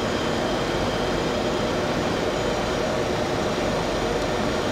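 Steady flight-deck noise of a jet airliner on final approach: an even hiss and rumble of air rushing past the cockpit, with the engines at approach power underneath.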